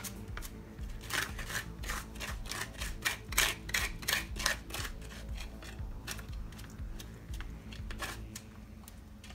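Wooden spoon scraping and pressing blended guava pulp through a stainless steel mesh strainer: a quick run of scrapes, about three or four a second, in the first half, then a few scattered strokes.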